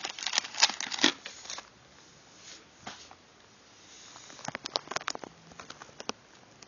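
Small plastic bags holding die-cast toy cars crinkling and rustling as they are handled, with light clicks against a clear plastic compartment case. There are two bursts of this handling noise, one at the start lasting about a second and a half, and another about four and a half seconds in.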